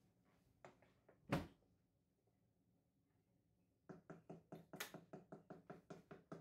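A single knock about a second and a half in, then, after a pause, a quick run of light taps, about five or six a second, near the end: a wooden spoon knocking against the side of a stainless steel pot while stirring hot blueberries.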